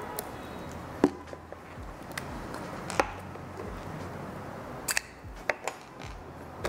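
Short plastic clicks and taps from handling a Canon EOS M50 mirrorless camera: the body cap and lens cap coming off and the EF-M 15-45 mm kit lens being fitted and twisted onto the mount, with a quick cluster of clicks near the end. A steady low hum runs underneath.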